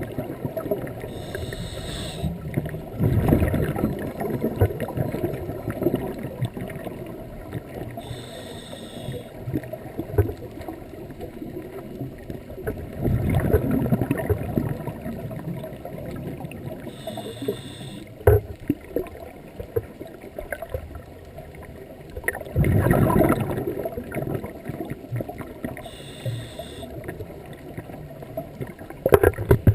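Scuba diver breathing through a regulator underwater, recorded from inside the camera housing: a short hiss of each inhale, then a louder gurgling rush of exhaled bubbles, four breaths in all.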